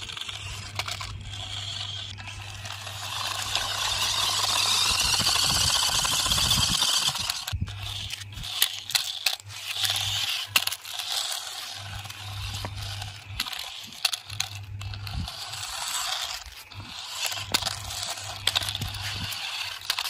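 Toy RC stunt car running: its electric motors whine, swelling louder for a few seconds. Then come many sharp clicks, knocks and scrapes of the plastic car on the ground, over a steady low hum.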